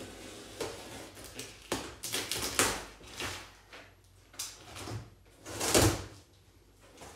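A knife slitting packing tape on a large cardboard box and the cardboard flaps being pulled open: a series of short scraping and tearing sounds with paper rustling, the loudest about six seconds in.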